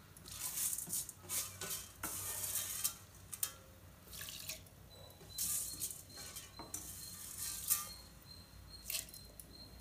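Dry roasted green gram (mung beans) being stirred and run through by hand in an aluminium pressure cooker: the grains rattle and scrape against the metal in a string of short rustling bursts.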